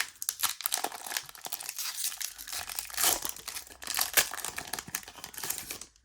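Foil wrapper of a Pokémon trading card booster pack being torn open and crinkled in the hands, a dense papery crackle that stops just before the end.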